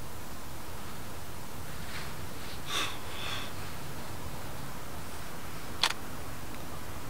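Steady low outdoor background rumble, with a short breathy noise close to the microphone about three seconds in and a single sharp click near six seconds.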